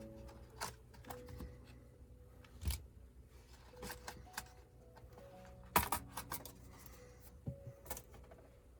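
Soft background music of short held notes, with a dozen or so sharp clicks and taps scattered through it, the loudest about six seconds in: small tools working on a laptop's case during disassembly.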